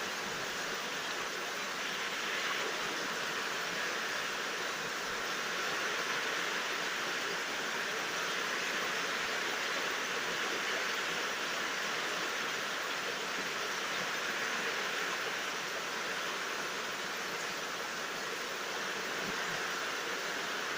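Steady rain falling, an even hiss that holds constant, with no thunder.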